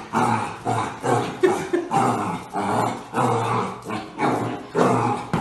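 Puppy barking and growling at its own reflection in a mirror, in a rapid run of short barks and growls about two a second.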